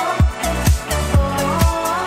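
Instrumental pop backing track with a steady electronic kick drum about twice a second, a bass line and a synth melody, with no singing over it.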